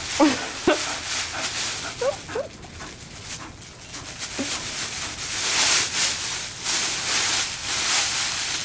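Bull terrier whining, short high squeals that slide in pitch: a few near the start, two around two seconds in and one more a couple of seconds later. After that comes a rustle of fabric as the costume is handled.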